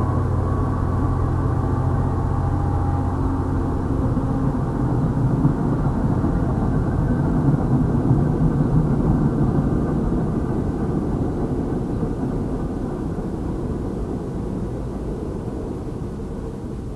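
MBTA commuter rail passenger coaches rolling past on the track: a steady rumble of wheels on rails, with a low hum in the first few seconds. It is loudest about halfway through and fades away as the last car goes by near the end. Heard muffled, with little high-pitched sound.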